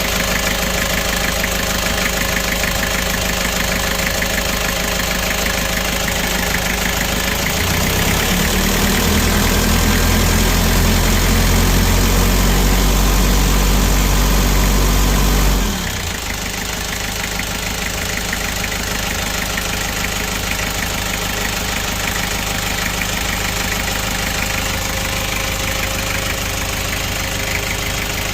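Freshly overhauled Kia Bongo Frontier 3.0 JT diesel engine idling. About eight seconds in it is revved up, held there for several seconds, then dropped suddenly back to idle.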